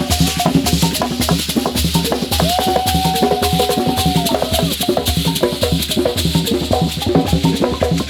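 Ugandan traditional instrumental music: drums and shakers playing a fast, dense rhythm, with short pitched notes over them and one long held note starting about two and a half seconds in and lasting about two seconds.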